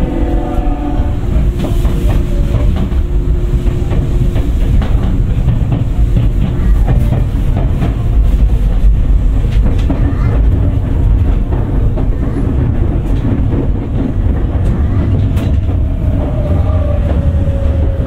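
Tokyu 9000 series electric train with early Hitachi GTO-VVVF traction control running: a steady low rumble of wheels on rail with rail-joint clicks. A steady motor tone sounds over the first few seconds, and a slowly falling tone comes in near the end.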